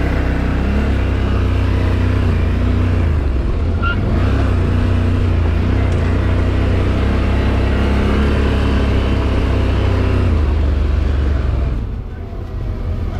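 Off-road vehicle's engine running under way, its revs wavering up and down, easing off briefly near the end before picking up again.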